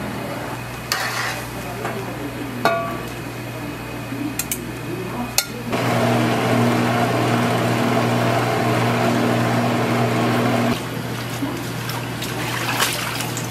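A few sharp clinks of a ladle in a pot, then an electric noodle-cutting machine running with a steady hum for about five seconds before cutting off abruptly, followed by water sloshing as boiled noodles are rinsed in a strainer.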